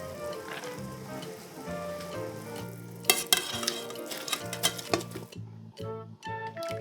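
Food sizzling in a hot pan while being stirred, with several sharp clacks of a utensil against the pan; the sizzling cuts off about five seconds in, leaving background music.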